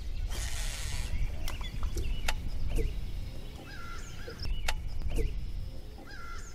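Birds calling and chirping throughout, short curving calls repeated many times, over a steady low rumble, with a few sharp clicks scattered through.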